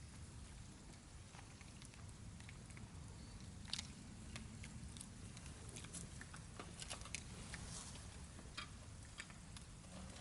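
Faint camp-meal sounds: scattered light clicks and ticks of utensils and food over a low steady rumble.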